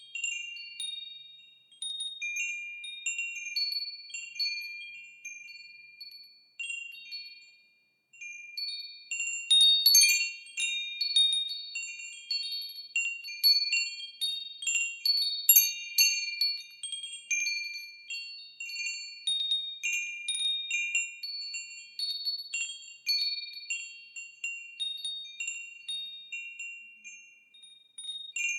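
Wind chimes ringing, struck at irregular moments in overlapping high tones that ring on and fade. They are sparse with a short lull near the start, then denser and louder from about a third of the way in.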